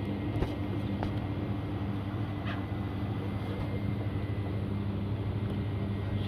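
A steady low mechanical hum with a noisy rush over it, broken by a few faint clicks.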